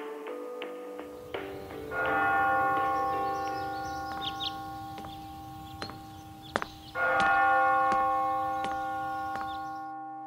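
A school bell chime, struck twice about five seconds apart (first about two seconds in), each chime ringing on and fading slowly. It is the class bell, and class begins right after.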